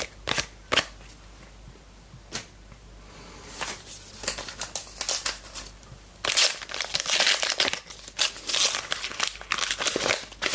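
A trading-card pack's wrapper being torn open and crinkled: a few light clicks at first, then crackling rustle that turns into dense, louder bursts about six seconds in.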